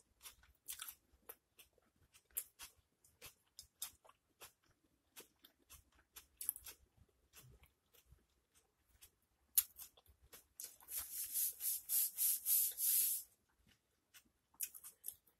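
Close-miked chewing of a pulled pork sandwich on soft bread: wet mouth clicks and smacks throughout, with a run of louder, rhythmic chewing smacks, about four a second, from around eleven seconds in.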